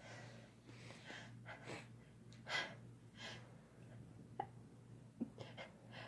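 Faint breathing of a person between sneezes: soft, short gasping breaths about once a second, with two small clicks in the second half.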